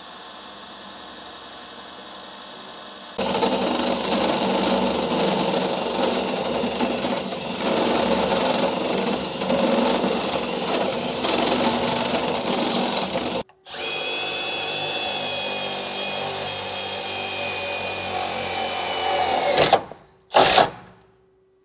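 Cordless right-angle drill working in a trailer floor. First it runs steadily on a small pilot hole. From about 3 s in, a step bit cutting out the larger hole is louder and rougher. From about 13.5 s it drives self-tapping screws with a steadier pitch, ending in two short bursts.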